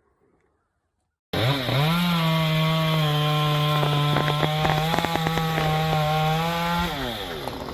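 Chainsaw starting abruptly after about a second of near silence, revving up to full throttle and holding there while cutting into wood with scattered crackles, then the revs drop away near the end.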